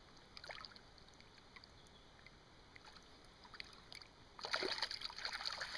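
Quiet water at the river's edge with faint small splashes, then about four and a half seconds in a louder spell of crackling splashing in the shallows as a grilse (small Atlantic salmon) is let go from the hand.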